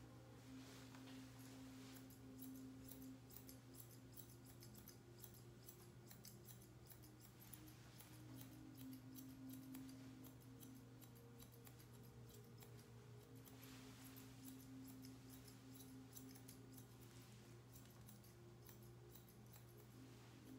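Grooming shears snipping through a poodle puppy's coat in faint, quick, repeated cuts.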